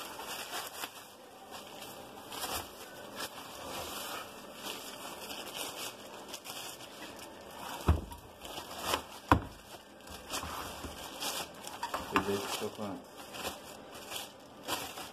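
Plastic wrapping and bubble wrap crinkling and rustling as it is pulled off a parcel by hand, with two sharp knocks a little over a second apart near the middle.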